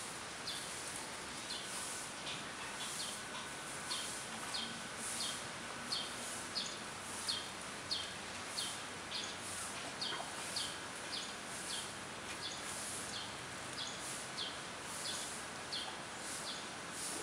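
A high, short, falling chirp repeated steadily about twice a second over a constant outdoor hiss.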